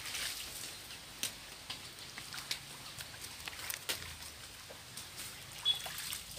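Muddy water sloshing and splashing as a plastic basin scoops and tips water out of a shallow mud pool, with scattered wet clicks and crackles of mud and leaves. A short high chirp sounds near the end.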